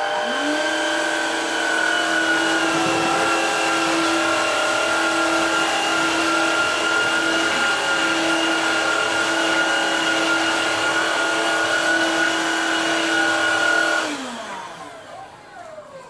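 G-well Ventus Aqua Pro cordless wet-dry floor cleaner switching on, its motor whining up to speed within half a second, then running steadily with a high whine as its roller head moves over the floor. It switches off about 14 seconds in, the pitch falling away as the motor spins down.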